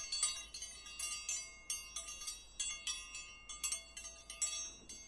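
Tinkling bell-chime sound effect: many high, bright notes struck in quick, uneven succession, each ringing briefly, like a small wind chime.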